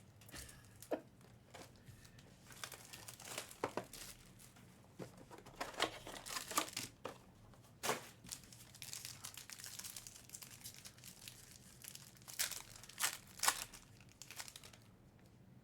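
Trading card pack wrappers crinkling and tearing in irregular short bursts as a pack is ripped open and handled, in a small room.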